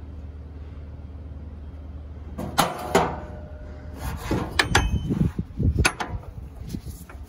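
Ratchet strap being thrown over a loaded scrap trailer and hooked on, its steel hook clanking against the metal load and the trailer rail in a series of sharp knocks and rattles from about two and a half seconds in. A steady low hum lies underneath.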